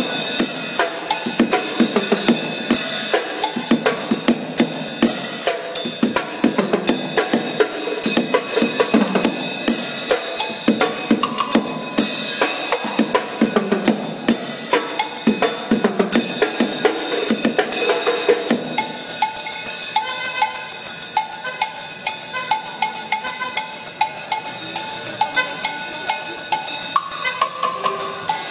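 A bicycle-mounted drum kit played fast, with snare, bass drum and cymbal strikes. About two-thirds of the way through, the lower drums drop back and a quick, even run of higher, ringing hits takes over.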